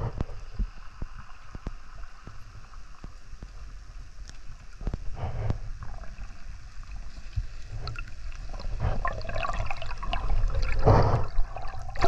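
Muffled water gurgling and sloshing around an underwater camera, with scattered short clicks. It grows louder and busier in the last few seconds as the camera rises to just below the surface.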